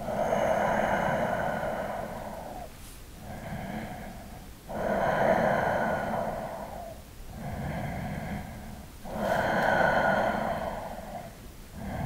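A man's slow, deep breathing, heard close. Long, louder breaths alternate with shorter, softer ones, about three full breaths in all.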